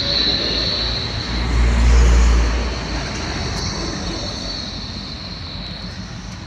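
A large vehicle passes close by in street traffic, its rumble loudest about two seconds in, over a steady high whine.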